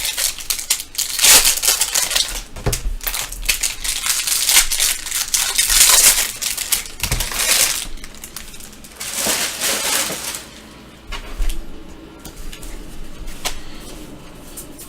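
Foil trading-card pack wrappers being crinkled and torn open by hand, a dense run of crackling for the first eight seconds or so, then quieter rustling of cards with a few light clicks.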